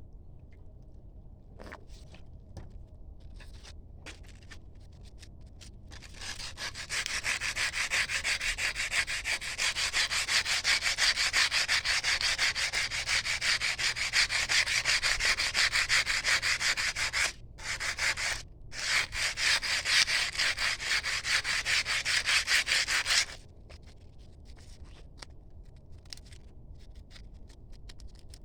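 Fast, even scraping strokes of abrasive hand work on a metal blade. They start about six seconds in, pause twice briefly, and stop several seconds before the end, with a few scattered clicks before them.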